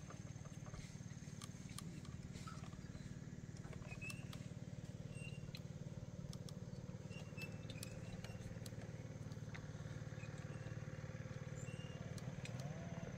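Steady low hum of an engine running, with scattered light knocks and clicks over it.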